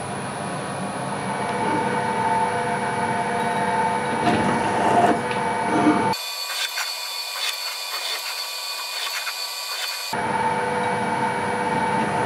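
FLOTT TB 14 bench drill motor running steadily while cutting into a steel jaw. About six seconds in, the sound changes abruptly to a thinner, high-pitched cutting sound as a countersink bit chamfers the hole edges. The steady motor hum returns a few seconds later.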